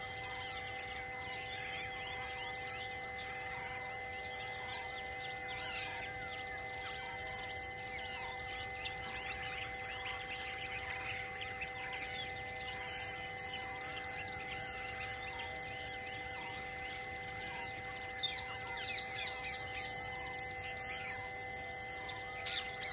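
Natural bush ambience: an insect chirps in a steady pulse about once a second while birds call, with two loud short whistles around ten seconds in and a rapid run of chirping notes near the end.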